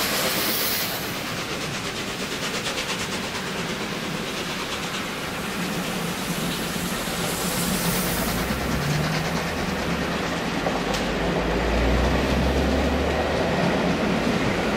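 Train of passenger coaches rolling past behind a departing steam locomotive, the wheels clicking over the rail joints with a steady rushing rumble. In the first second the locomotive's rapid exhaust beats die away into the distance, and the low rumble grows louder in the second half.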